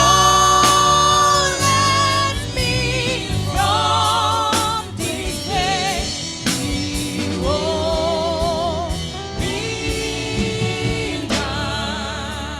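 Gospel worship singing: a voice holds long notes with vibrato over a steady low instrumental accompaniment.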